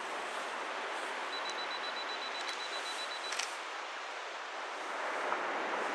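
Steady wash of surf and wind on a sandy beach with the tide coming in. About a second in, a faint, high, broken beep runs for about two seconds, with a few faint clicks from the camera gear.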